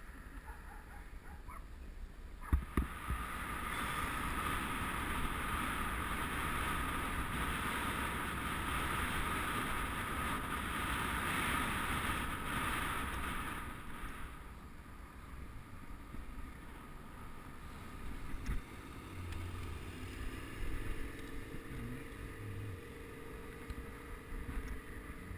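A couple of sharp knocks, then the steady rush of wind and tyre noise from a road bike being ridden along the road. It stays loud for about ten seconds, then eases to a lower rumble with a few faint bumps.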